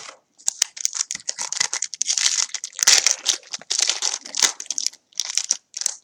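A foil trading-card pack being torn open by hand, its wrapper crinkling and crackling in a dense run with short pauses.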